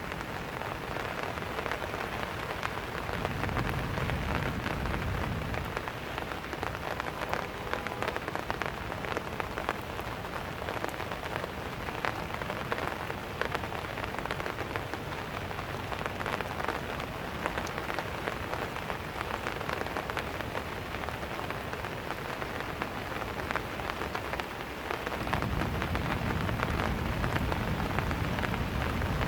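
Steady rain falling on hard surfaces, with many individual drops ticking through it. A low rumble swells about three seconds in, fades, and returns near the end.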